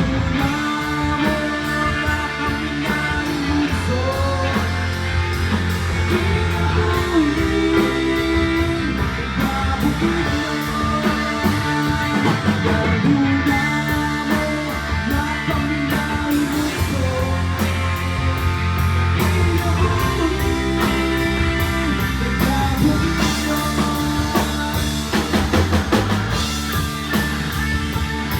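A rock band playing live: electric guitar over bass and a drum kit, with the lead line bending between notes.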